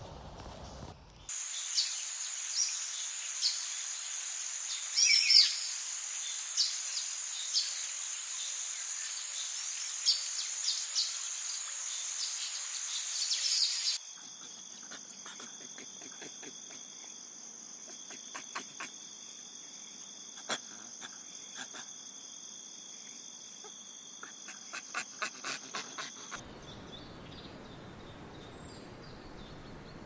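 Steady, high-pitched chorus of insects with scattered short chirps and clicks. It changes abruptly about halfway in to a fainter chorus holding several steady pitches, and gives way near the end to a faint, even hiss.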